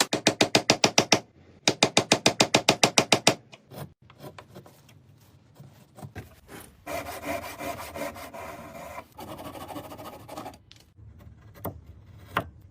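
Wood being cut and shaped with tools: two runs of rapid, evenly repeated strokes in the first few seconds, then after a quieter gap a longer spell of rasping, and a few light knocks near the end.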